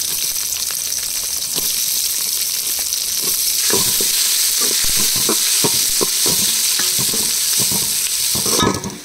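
Finely chopped onions sizzling loudly in hot oil in a metal pot with curry leaves and tempering spices. From about three and a half seconds in, a spatula scrapes and stirs them with repeated strokes. The sizzle drops off sharply near the end.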